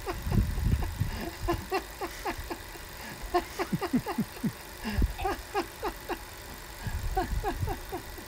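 Several bursts of laughter, each a quick run of 'ha' sounds that fall in pitch, with low wind rumble on the microphone.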